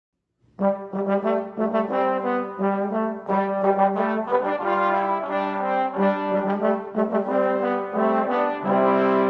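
A brass ensemble starts playing about half a second in, sustained chords with several instruments moving together, after a moment of complete silence.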